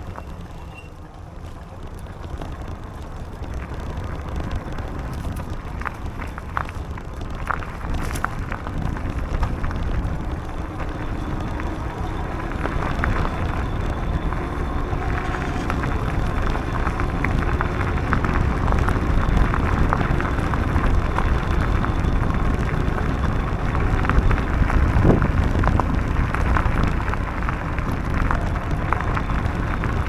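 Bicycle tyres rolling over a dirt and gravel path, with a steady low rumble of wind on the microphone and many small crunches and ticks of grit under the wheels, growing gradually louder through the ride.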